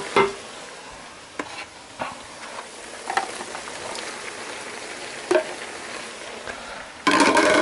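Cubed pork tenderloin sizzling in a frying pan in its own juices, with a plastic spatula scraping and tapping against the pan now and then. Sliced green pepper and onion are tipped in partway through, and a louder burst of clatter and sizzle comes near the end.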